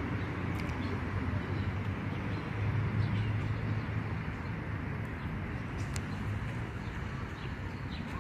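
Steady outdoor city background noise with a low rumble that swells a little about two to five seconds in, and a few faint, short high chirps.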